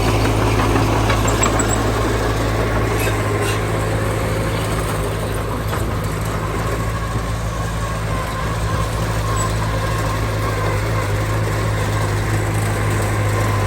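Heavy diesel engine of earthmoving machinery running at a steady low drone.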